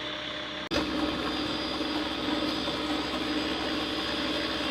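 A vehicle engine running with a steady drone. The sound drops out for an instant under a second in and comes back louder.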